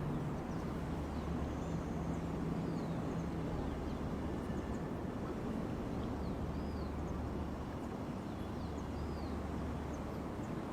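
Steady outdoor background noise with a low hum under it and occasional faint, short bird chirps.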